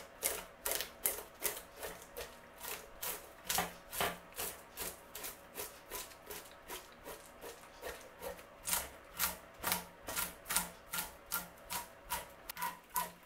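The back of a kitchen knife scraping scales off a sea bass in quick, repeated strokes, about three a second, each a short rasping scrape.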